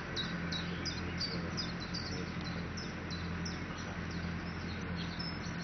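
A small bird singing outdoors: a steady run of short, high, falling notes, about three a second, over a low steady hum.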